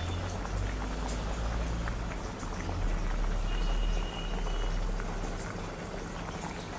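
Kerala fish curry bubbling at a rolling boil in a black clay chatti: a dense crackle of bursting bubbles over a low rumble. The curry is being boiled on until its oil rises to the top.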